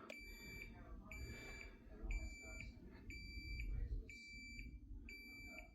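Refrigerator door-open alarm beeping, about one high electronic beep a second, each about half a second long: the alarm for a door left open. A faint low rumble runs underneath.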